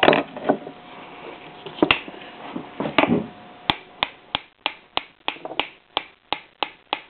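Sharp metal clicks and taps from work on an MG TF 1500 differential cage's cross shaft and spider gears: a few scattered knocks, then from about halfway a regular run of taps, about three a second.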